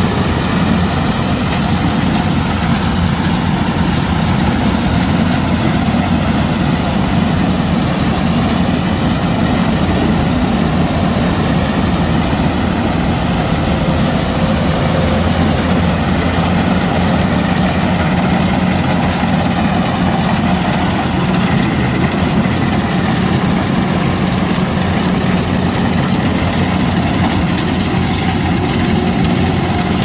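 Kubota DC-105X combine harvester's diesel engine and machinery running steadily at an even speed.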